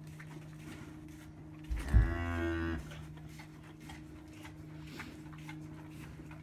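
A mother cow gives one low moo, about a second long, roughly two seconds in, while tending her newborn calf.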